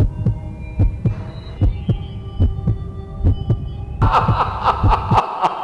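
A heartbeat sound effect: regular low thumps, about three a second, over eerie music of held tones. A brighter, louder layer of the music comes in about four seconds in.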